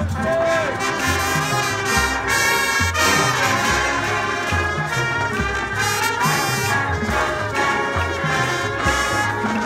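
Marching band playing a brass-led passage, trumpets and trombones carrying the tune over a repeating low bass line.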